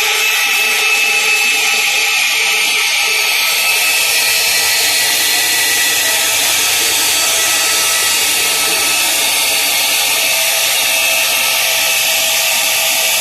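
Band saw machine running, a loud, steady machine noise with several steady tones through it; it grows a little brighter and fuller about three to four seconds in.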